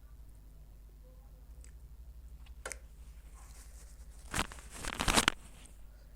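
Close-miked eating sounds: a few faint clicks and mouth sounds, then two loud, noisy bursts about four and five seconds in.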